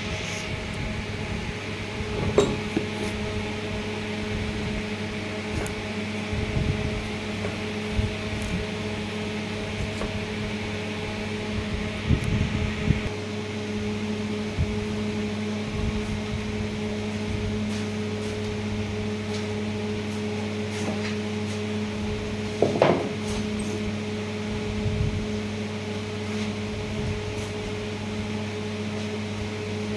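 A steady machine hum, with a few sharp knocks and taps on wood now and then; the loudest come about 2, 12 and 23 seconds in.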